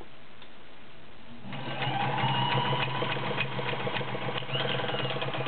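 Kenmore model 1229 sewing machine stitching through fabric. Its motor starts about a second and a half in, with a whine that rises as it speeds up, then runs steadily with the needle's rapid, even ticking.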